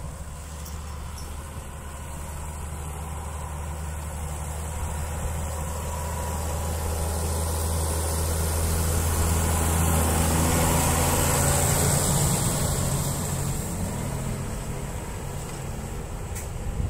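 John Deere 6810 tractor's six-cylinder diesel engine running steadily while working a field smoother. It grows louder toward a peak about two-thirds of the way in, then eases off a little.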